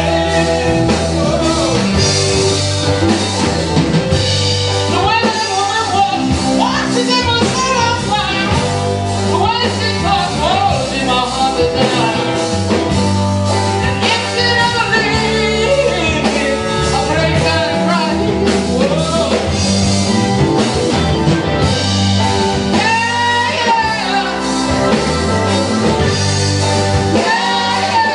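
Live rhythm-and-blues band playing: electric guitars, drums and saxophone under a sung lead vocal, with a second voice singing along at another microphone.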